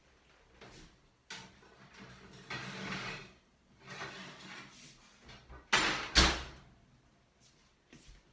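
A lidded cast-iron bread pan being loaded into a hot oven: the oven door opens, and there is a series of metal clatters as the pan goes onto the rack. About six seconds in come two loud knocks close together, as the oven door shuts.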